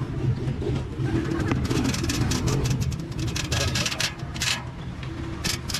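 Vehicle engine idling with a steady low hum, overlaid by a run of quick sharp clicks and rattles from about a second and a half in, and again near the end.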